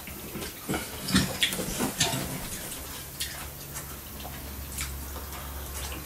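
Scattered light clicks and taps of cutlery against plates and glassware at a meal. A faint low hum comes in about halfway.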